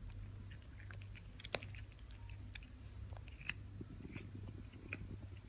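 A kitten eating raw meat from a plastic bowl, licking and chewing up the last scraps. The sound is irregular small wet clicks and smacks, the sharpest about a second and a half in.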